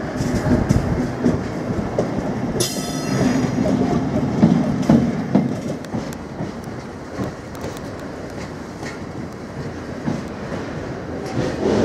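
Loaded oil tank wagons rolling slowly past, their wheels clicking over rail joints, with a brief high-pitched wheel squeal about two and a half seconds in.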